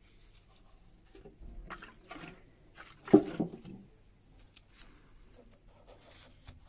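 Handling a tin of Danish oil and dabbing the oil onto a cloth, with small liquid and rustling noises and one sharp knock about three seconds in. Near the end the oily rag wipes a sealer coat onto a small wooden plane block.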